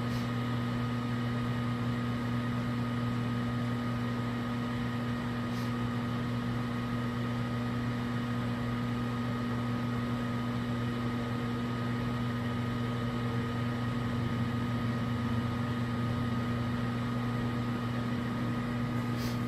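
Microwave oven running while heating a glass of water: a steady hum with a low mains drone, with a few faint ticks near the start, about six seconds in, and near the end.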